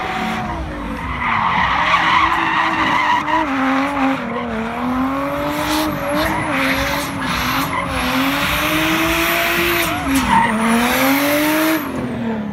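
Nissan Silvia (S14) drift car's engine held at high revs, its pitch wavering up and down with the throttle, over the hiss and squeal of spinning rear tyres as it drifts in tight circles. A faint high whistle rides along with it; near the end the revs dip, climb again, then the throttle is let off and the whistle falls away.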